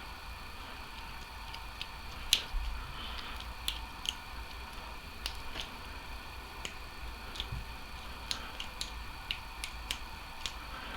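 A lock-picking rake worked up and down in a padlock's keyway under light tension from a tension wrench, making small metallic clicks at irregular intervals. The loudest click comes a little over two seconds in.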